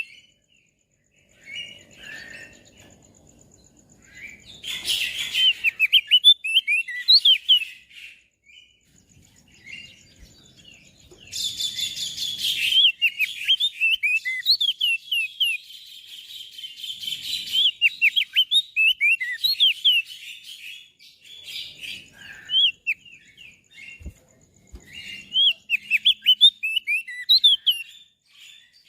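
Crested white-eye (opior jambul) singing: bursts of rapid, high, sliding chirps and trills lasting a few seconds each, broken by short pauses.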